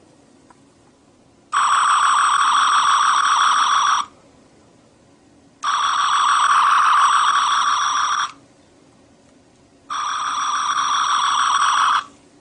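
Electronic firing sound of a replica Star Trek phaser, fired three times in bursts of two to three seconds: a loud buzzing tone with a fast flutter that starts and stops abruptly each time.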